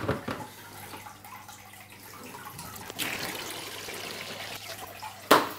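Aquarium water running from a siphon hose into a plastic bucket, a soft trickle that becomes a steadier, louder splashing about three seconds in. A sharp knock just before the end.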